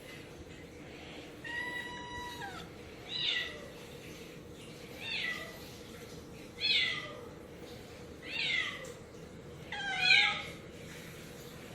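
Domestic cat meowing again and again: one longer drawn-out meow, then five shorter meows falling in pitch, about one every second and a half to two seconds.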